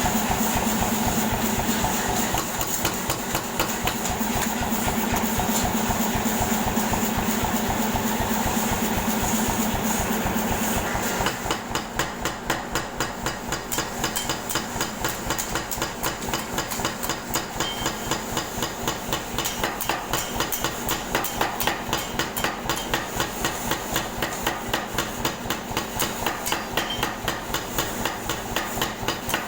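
Air hammer pounding in a fast, even run of blows, with a steady hum underneath that stops about eleven seconds in; after that the repeated strikes stand out more clearly.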